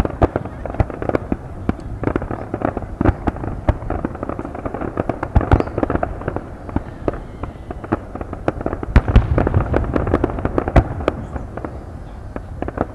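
Fireworks display: aerial shells bursting in quick succession, a dense run of sharp bangs and pops with no let-up, heaviest about nine to eleven seconds in.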